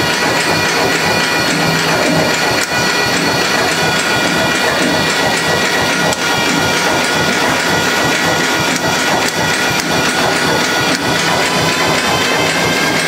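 Antique DC generator and the engine driving it running steadily, with a dense mechanical clatter and a steady whine made of several tones. The whine rises a little near the end as the speed picks up.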